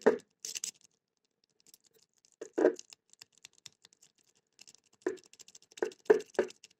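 A metal jiggler key being worked in a single-sided wafer lock: faint scratchy ticks and rattling, with a few louder clicks about two and a half seconds in and a quick run of clicks near the end.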